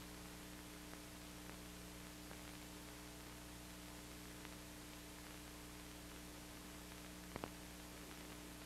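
Near silence: the faint steady hiss and low hum of an old film soundtrack, with a few faint clicks, two of them close together near the end.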